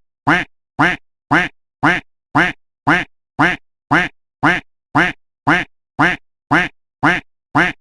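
A duck quack looped over and over at an even pace, about two quacks a second, every quack the same, with silence between them.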